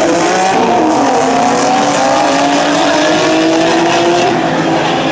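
Two turbocharged drag cars, a turbo Acura NSX V6 and a turbo Volkswagen GTI VR6, accelerating hard side by side down the strip. Their engine pitch climbs for about four seconds, then drops and fades a little as they pull away.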